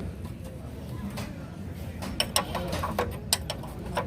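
Scattered sharp metal clicks and taps of a hand wrench working the rear axle and stay bolts on a motorcycle, coming thickest in the second half.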